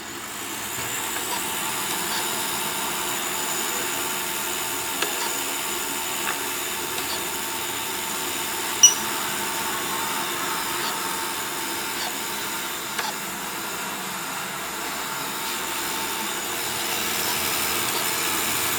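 Computer cooling fans whirring steadily, with many fixed tones, coming up about a second in. A few faint ticks and one short sharp click with a brief high chirp, about nine seconds in, sit over the fans.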